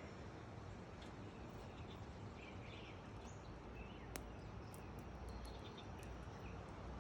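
Scattered short bird chirps over a steady low background rumble, with a sharp click about four seconds in.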